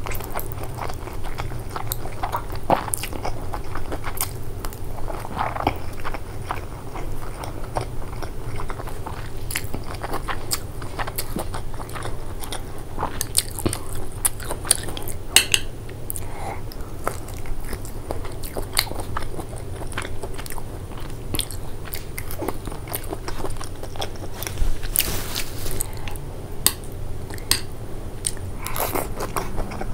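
Close-miked chewing of stir-fried black bean noodles, with many small wet clicks and mouth smacks throughout and a few longer slurping sounds as mouthfuls are pulled in.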